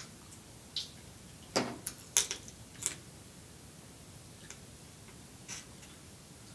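Close-miked eating sounds of snow crab being eaten: wet mouth smacks and sucking clicks. A quick string of sharp clicks comes in the first three seconds, then a few more spaced out.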